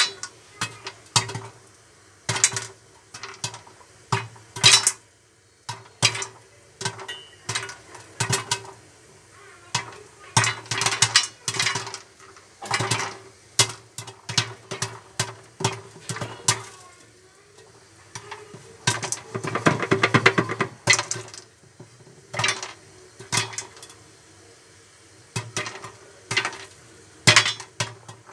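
Popcorn kernels popping in a covered kadai: irregular sharp pops and clinks against the pan and lid, coming thick and fast in a burst about two-thirds of the way through.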